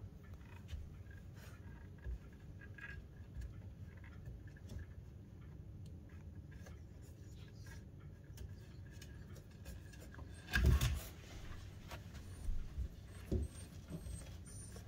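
Puppy moving about on a wooden shelf: faint scattered taps and rubbing of paws on the wood, with a louder bump about ten and a half seconds in and a few smaller knocks after it.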